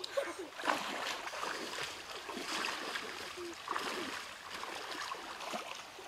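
Shallow stream water splashing in short, irregular bursts as people wade through it and jab at fish with sticks.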